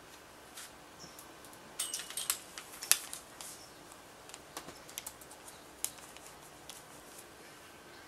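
Irregular key clicks from typing on a MacBook Pro laptop keyboard, with a louder cluster of clicks and knocks about two to three seconds in.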